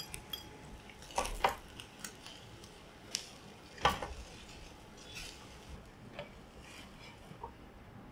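Plastic spatula knocking and scraping against a small rectangular nonstick tamagoyaki pan while turning a rolled egg omelette: scattered short knocks, two close together about a second in, the loudest about four seconds in, then a few lighter taps.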